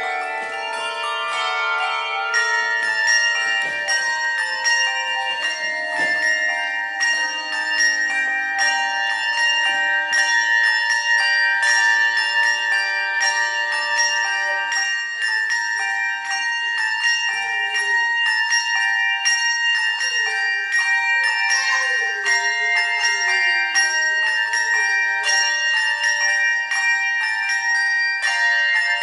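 Handbell choir playing a piece: many brass handbells struck one after another, their tones ringing on and overlapping.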